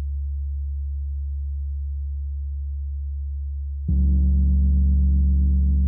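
32-inch Tree of Life gong humming with a deep, steady low tone. About four seconds in it is struck with a soft mallet and blooms louder, with many overtones ringing above the deep fundamental in a long sustain.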